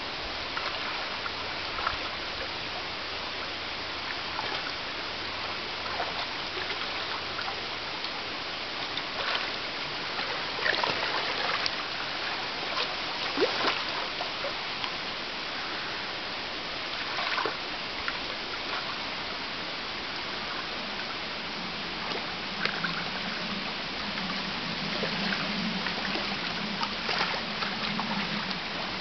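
Shallow stream running over rocks, with splashes as European otters move and play in the water. The louder splashes come in a cluster around the middle and singly later on.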